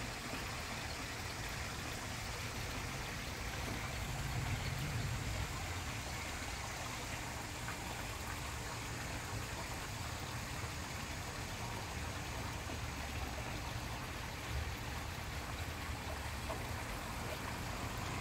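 Steady rushing background noise with a low rumble underneath, holding even throughout, with no distinct calls or knocks standing out.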